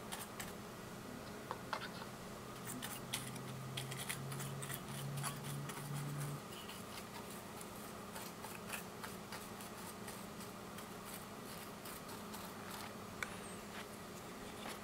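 Faint rustling and scratching of a Kimwipe paper tissue being handled and rubbed over a circuit board, with scattered small clicks and a faint low hum during the first six seconds or so.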